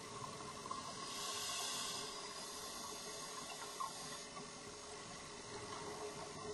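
Underwater sound of open-circuit scuba breathing: a faint steady hiss and bubbling of the regulator and its exhaust, with a louder breath hissing from about one to two seconds in.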